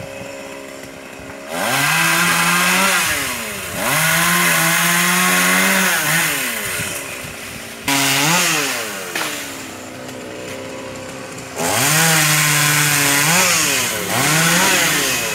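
Petrol chainsaw idling, then revved up in several bursts of one to three seconds, dropping back to idle between them, as it cuts through tree branches.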